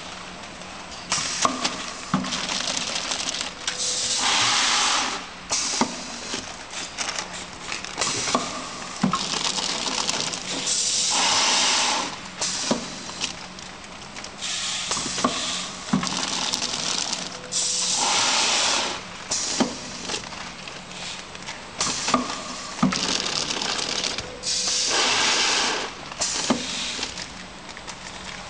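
Vertical granule filling and packing machine (UP300K, measuring-cup filler) running through its bagging cycle. The cycle repeats about every seven seconds: sharp clicks and clacks from the mechanism, and a hissing rush about a second long in each cycle, over a steady hum.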